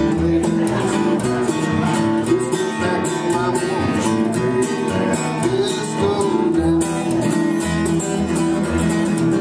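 Country music played live on a strummed acoustic guitar in a steady rhythm, with an upright double bass plucking the low notes beneath it.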